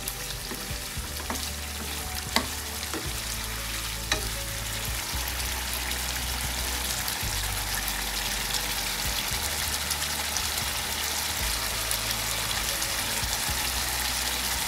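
Chicken pieces frying in freshly added oil in a wok, sizzling steadily and growing gradually louder. A wooden spatula stirs and knocks against the pan twice in the first few seconds.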